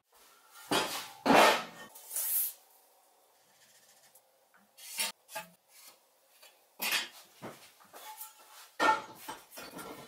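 Hand work on a painted metal square tube: a few short scratching and rubbing strokes, such as a line being marked along a square, with a quiet stretch in the middle and more strokes near the end.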